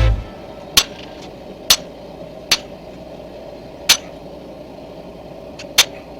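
Hammer striking mild steel, five sharp ringing blows spaced irregularly about a second apart, over a steady hum.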